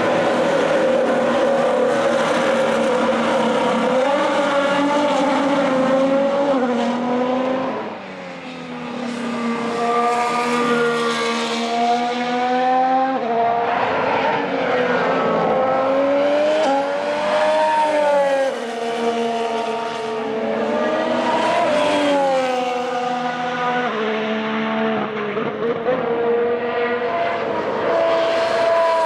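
Formula 1 car's Honda RA619H 1.6-litre turbocharged V6 running hard, its pitch climbing through the gears and dropping repeatedly at shifts and when the throttle comes off.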